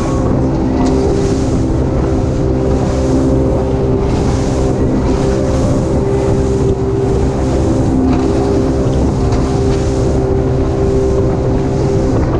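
A center-console fishing boat's engine running steadily at cruising speed offshore. A heavy low rumble underlies it, with a rush of wind and spray swelling and fading every second or two as the hull runs through the sea.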